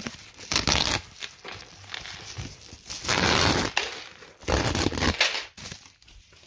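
Tissue paper rustling and crinkling in several bursts as it is pulled off a bag and its metal chain strap, the longest burst about three seconds in.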